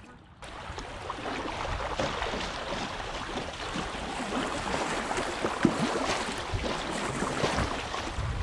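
River water rushing and splashing around a kayak's hull as it runs through a fast, choppy riffle, with a low rumble underneath.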